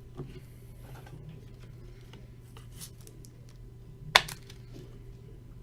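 Faint rustling and light ticks of trading cards and packaging being handled, with one sharp click about four seconds in, over a steady low hum.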